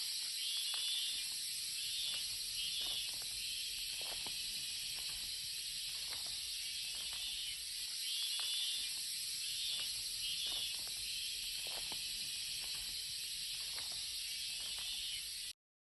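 Steady high-pitched hiss with scattered small crackles, cutting off abruptly near the end.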